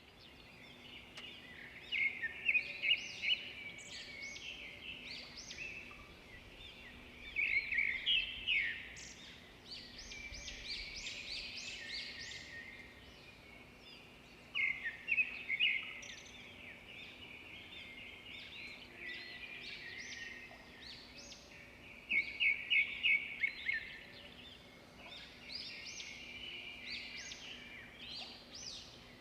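Several songbirds singing and chirping, in clusters of quick high notes every few seconds with quieter calls between.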